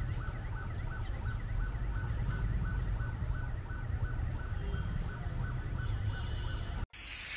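Street noise with a low traffic rumble and a rapid electronic alarm beeping about four times a second. The street sound cuts off abruptly near the end.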